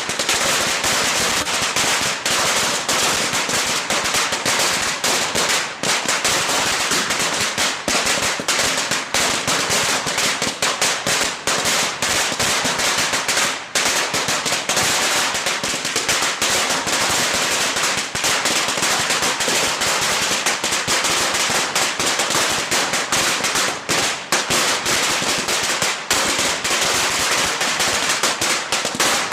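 A long string of firecrackers going off, a dense rapid crackle of sharp bangs that keeps on without a break.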